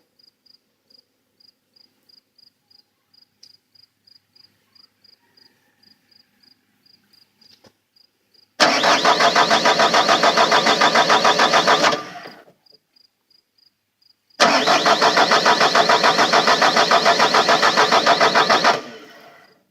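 Bobcat T300 skid steer's turbo diesel engine cranking on the starter twice, each try about four seconds of even pulsing that dies away without the engine catching: a no-start. A faint, steady beep repeats about three times a second in the pauses.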